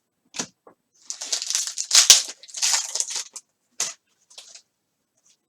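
Foil trading-card pack wrapper being torn open and crinkled: about two seconds of loud crackling in the middle, with a few short clicks of cards being handled before and after.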